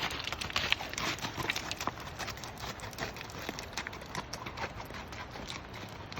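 Horse hooves clopping in an irregular run of knocks and clicks, busiest in the first couple of seconds.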